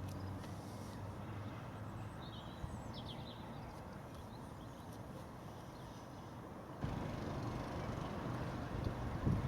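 Outdoor background rumble with a short bird call, a few quick chirps, about two to three seconds in; the background noise gets suddenly louder about seven seconds in.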